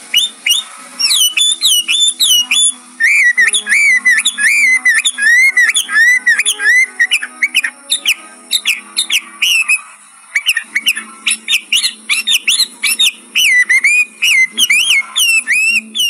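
Chinese hwamei (melodious laughingthrush) singing a loud, varied song of rapid whistled notes that swoop up and down, phrase after phrase, with a brief lull about ten seconds in.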